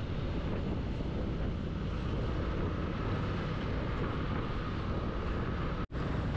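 Steady low rumble of riding a Yamaha Aerox 155 scooter in traffic: engine, road and wind noise on the rider's microphone. The sound cuts out for an instant near the end.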